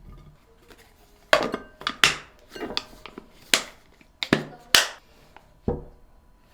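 Household items such as containers and dishes being handled and set down: about eight sharp, irregular knocks and clinks, some of them ringing briefly.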